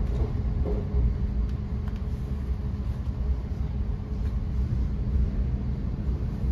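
Thameslink electric train running along the line, heard from inside the carriage: a steady low rumble from the wheels on the rails with a constant hum.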